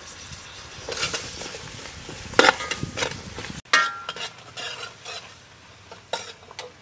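Metal ladle stirring sliced shallots, garlic and ginger through a bubbling sauce in a large aluminium pot, with sizzling and scraping and several sharp clinks of metal on the pot. The loudest clink comes about halfway in, and another rings briefly just after.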